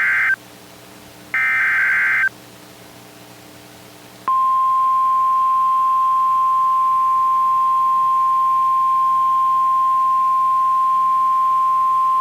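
NOAA Weather Radio SAME alert header: the end of one harsh digital data burst, then a last full burst about a second later. About four seconds in, the steady single-pitch 1050 Hz weather-radio warning alarm tone starts and holds, signalling that a warning is about to be broadcast.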